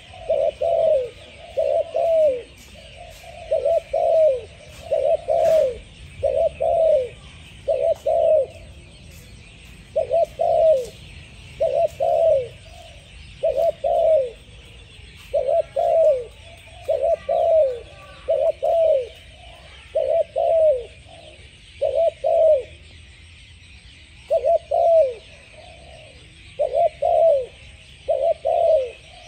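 Spotted dove cooing: low coos that fall in pitch, mostly in pairs, repeated phrase after phrase with short pauses between.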